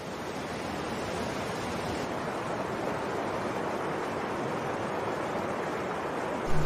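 River rapids: whitewater rushing and churning over rocks, a steady full rush of water.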